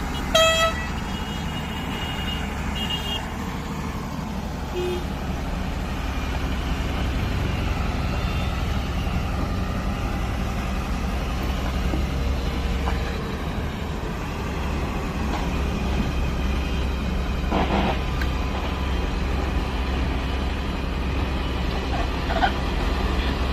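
Excavator's diesel engine running steadily under a low rumble, with a short horn toot about half a second in and a brief knock about three-quarters of the way through.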